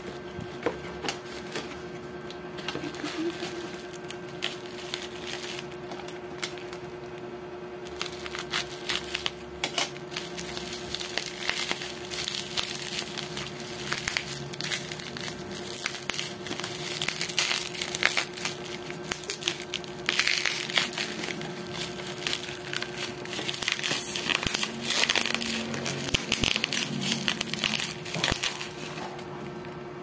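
Plastic bubble wrap crinkling and crackling as it is handled and unwrapped from around a squeeze tube, the sharp crackles coming thicker in the second half.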